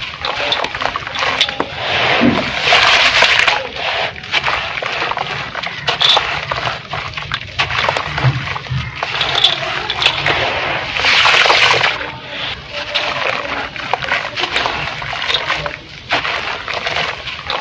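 Chunks of red gritty sand-cement crumbling in water: irregular crackling, fizzing and small splashes and sloshes as the material breaks apart and dissolves.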